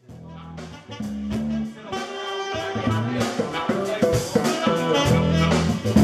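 A live band starts a song with electric and acoustic guitars and a saxophone. It comes in quietly and grows louder over the first second or so, then again near the end.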